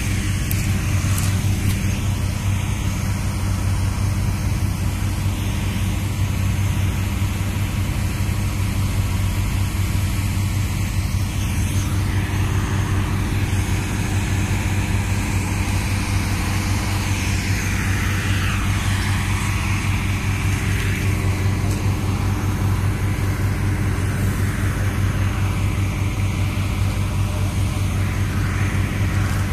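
Steady electrical hum of a 70 kV high-voltage substation: a constant low drone with overtones, under a faint hiss.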